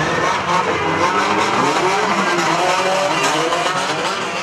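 Several banger racing cars' engines revving at once, their pitches rising and falling, over the rumble of the track.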